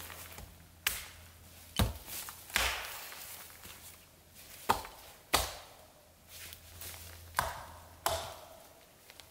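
A small axe chopping into branches: about seven sharp, unevenly spaced blows.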